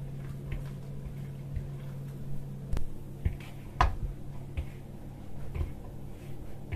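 Hand kneading soft, sticky cookie dough of margarine, oil, yogurt, egg and flour in a plastic bowl: soft squishing with a few short knocks against the bowl, the loudest near the middle. A steady low hum stops about three seconds in.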